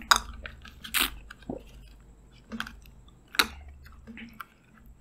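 Close-miked slurps and crackles from a small Maaza mango drink carton being sucked dry through its straw while the hands squeeze the pack. About half a dozen short, sharp sounds come at uneven gaps a second or so apart.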